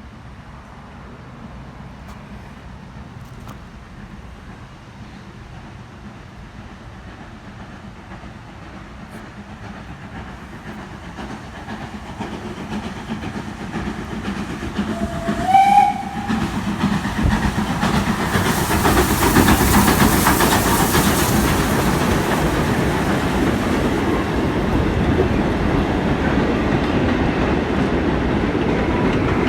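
Goods train approaching and passing: a rumble that builds steadily, a short whistle blast about halfway through, then the loud clatter of the wagons' wheels over the rail joints as the train goes by.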